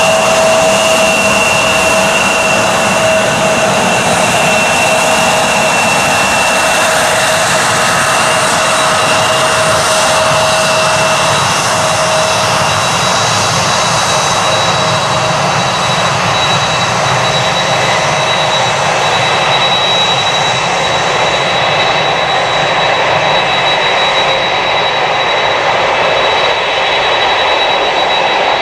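Airliner jet engines running on the ground at taxi power: a steady, loud rush with whining tones. About halfway through, the lower whines fade and a single higher whine takes over as the Boeing 767 taxis away.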